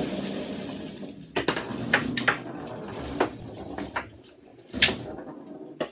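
Foosball table in play: a rattle of rods sliding and spinning in the first second or so, then about half a dozen sharp knocks as the figures strike the ball and the rods bang against the table, the loudest near the end.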